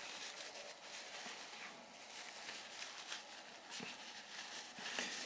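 Faint, scattered small clicks and scratches of hands working on the small wind-up generator, which is being cleared of iron filings that stop it from turning. A slightly louder click comes near the end.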